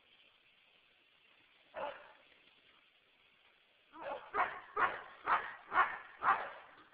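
Dog barking in play: a single bark about two seconds in, then a quick run of about six barks, roughly two a second, starting around four seconds in.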